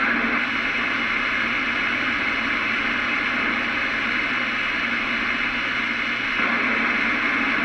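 Steady hiss of CB radio static from an open receiver between transmissions, band-limited like a radio speaker, with no clear voice on the channel.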